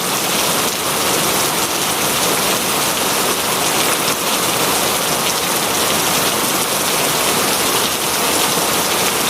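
Heavy rain falling steadily on a surface: a dense, even hiss of drops with no let-up.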